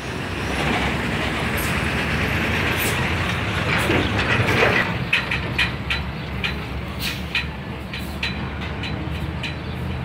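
Heavy diesel trucks on the road: a Mercedes-Benz flatbed crane truck passing close while a Volvo FH semi-trailer truck approaches, engines running under a steady wash of tyre noise. About halfway through, a run of sharp clicks and rattles begins over the engine sound.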